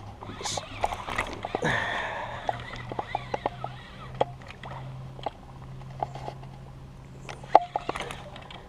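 Small waves lapping and slapping against a kayak hull in short, scattered knocks, over a faint steady low hum.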